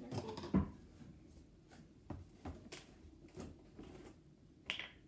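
Scattered light knocks and clicks of a plastic gallon jug of glue being handled on a table and its cap worked open, with a louder knock about half a second in and a short scrape near the end.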